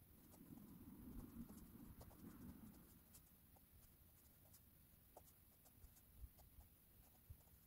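Near silence with faint scratching of a graphite pencil drawing on paper, a little stronger in the first few seconds, and scattered light ticks.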